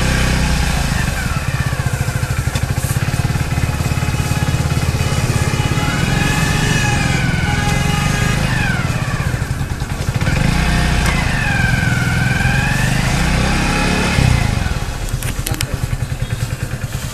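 Hero Splendor BS6's 97cc single-cylinder four-stroke engine running in gear with the rear wheel spinning, for a rear drum brake noise check. The brake has been refitted, with the wheel aligned and the brake spring shortened, and makes no noise. Near the end the engine note drops and a few light clicks follow.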